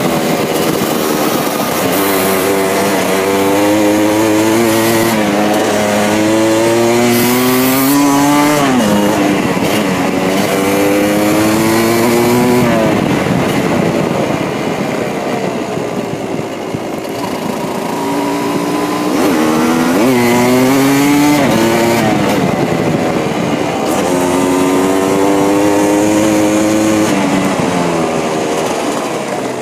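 Yamaha DT200's single-cylinder two-stroke engine pulling through the gears under way, its pitch climbing and dropping back at each upshift several times, easing off for a few seconds midway.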